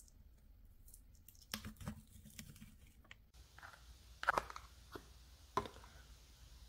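Quiet handling sounds: the plastic film of a tofu tray being picked at and crinkled, then a few light clicks and knocks, the loudest about four seconds in.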